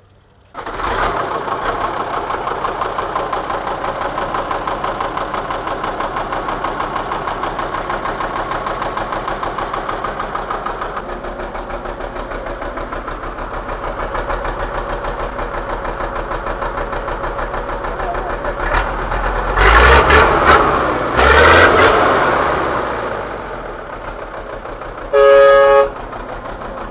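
1975 MAN truck's diesel engine idling with a steady rapid pulse, revved twice briefly about twenty seconds in. Near the end a vehicle horn toots once, for under a second.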